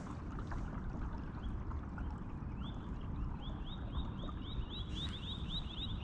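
Steady low wind rumble on the microphone. From about halfway in, a songbird gives a rapid trill of short rising chirps, several a second.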